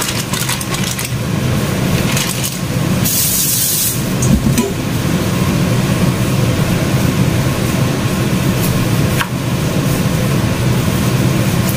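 A steady low hum of a running machine throughout, with plastic bag rustling and a few knocks of a knife on a bamboo cutting board as frozen young jackfruit is cut. A brief hiss about three seconds in.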